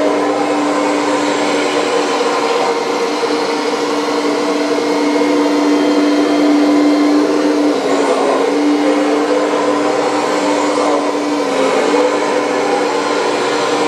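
Electric hydraulic pump of a radio-controlled Volvo EC480D model excavator whining steadily as the boom and grapple move, its tone dipping briefly about eight and again about twelve seconds in. It is the older pump, which is not silent, rather than the newer silent pump.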